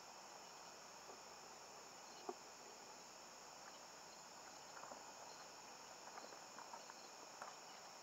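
Faint, steady, high-pitched insect chirring, with one short knock about two seconds in and a few faint ticks near the end.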